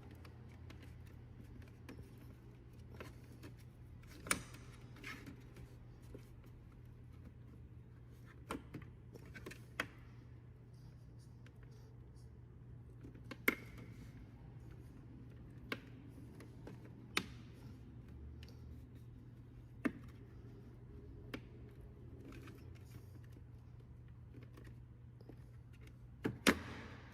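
Plastic trim clips and tabs clicking and knocking as a fog-light bezel is pressed back into a car bumper: scattered single sharp clicks a few seconds apart, with the loudest pair near the end, over a steady low hum.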